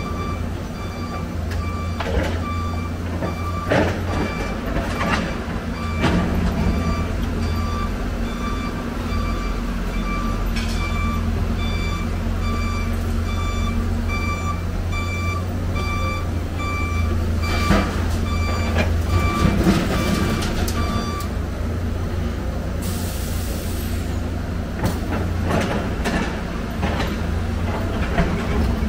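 Heavy diesel machinery running with a steady low rumble while a reversing alarm beeps evenly, about once a second, stopping about three-quarters of the way through. Scattered clanks of scrap metal being handled, and a short hiss near the end.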